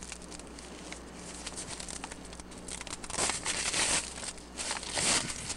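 A package being torn and crinkled open: faint rustling at first, then louder, dense crinkling and tearing in the last couple of seconds.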